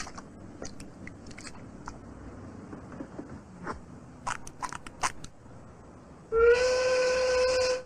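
A cartoon whistle sound effect, like a steam whistle, comes in about six seconds in and holds one steady pitch for about a second and a half, after a slight scoop up at the start. It is the gag for a baby's mouth burning from hot sauce. Before it there are only a few scattered small clicks and knocks.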